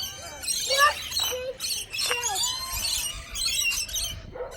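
Many parrots calling at once: a dense chorus of shrill, overlapping squawks and chirps with quick rising and falling pitch.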